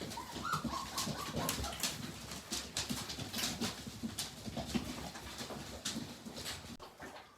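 Young puppies moving about with a short, faint whine about half a second in, over scattered small clicks and shuffling.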